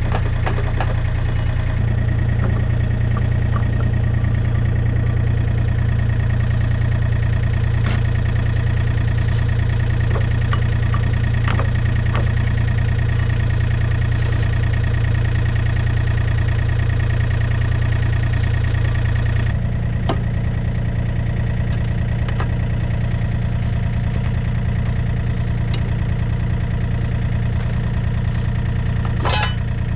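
Compact excavator's diesel engine running steadily. Its note shifts about two seconds in and again about two-thirds of the way through, with a few sharp metallic clicks.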